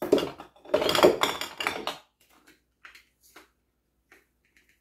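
Dehydrated onion flakes poured into the metal cup of an electric spice grinder, a dense rattle lasting about two seconds. After it come a few light clicks and taps of jars and measuring spoon being handled.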